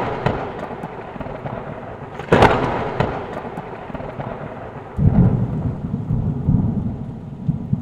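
Thunderstorm sound effect: steady rain, a sharp thunderclap about two seconds in, then low rolling thunder from about five seconds in.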